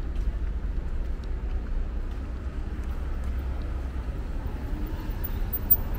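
Steady low rumble of outdoor city street noise, with one brief knock near the end.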